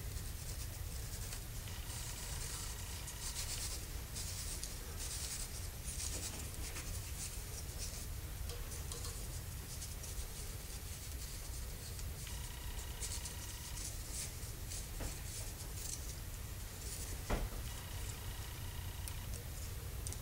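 Cut wooden helix pieces rubbing and scraping against each other as they are handled and twisted apart, in several scratchy stretches with a few short squeaks, over a faint steady low hum; one sharp click near the end.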